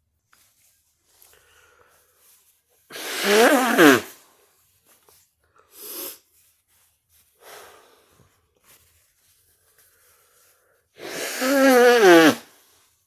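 A person blowing their nose hard into a tissue twice, each blow lasting over a second with a honking tone that drops in pitch. A couple of short, softer sounds come between the blows. This is nasal congestion being cleared.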